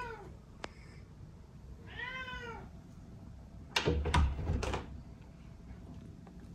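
Ragdoll cat meowing: the tail of one call right at the start and a second rising-and-falling meow about two seconds in. About four seconds in come three quick, loud thumps.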